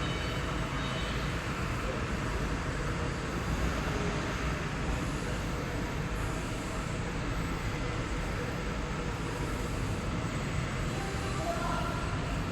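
Steady factory-floor machinery noise: a constant rumble and hiss with no distinct strokes or impacts.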